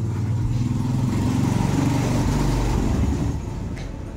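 A motor vehicle drives past, its engine and road noise swelling to a peak about two seconds in and then fading away.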